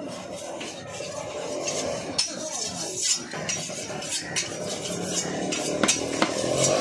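Large knife chopping a trevally (paarai) fillet into cubes on a wooden chopping block: irregular sharp knocks as the blade cuts through the flesh and strikes the wood, the sharpest strokes near the end.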